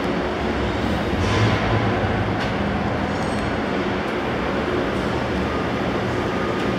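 Steady low mechanical rumble and hum, with faint steady tones above it and no clear start or stop.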